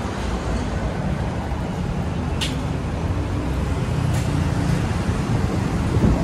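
Road traffic: vehicle engines running close by, a steady low rumble that grows a little louder near the end, with a brief sharp click about two and a half seconds in.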